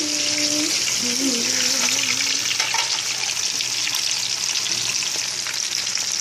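Lobster tails frying in hot vegetable oil in a pan: a steady sizzle with fine crackling.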